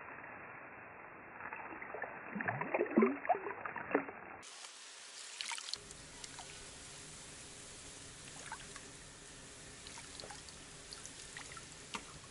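Water splashing and sloshing around a landing net in a pond as a fish is netted, in a quick run of splashes about two to four seconds in. Then a quiet outdoor background with a few faint ticks.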